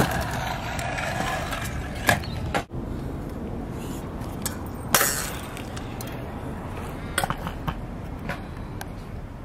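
Stunt scooter riding a concrete skatepark bowl: a steady low rumble of the wheels rolling, broken by sharp clacks of the wheels and deck striking the concrete. There is one clack about two seconds in, a louder one about five seconds in, and a few lighter clicks near the end.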